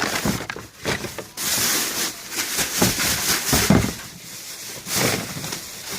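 Rustling, crinkling and knocking as items are rummaged out of a donation box and unwrapped. The noise comes in uneven spells, loudest in the middle.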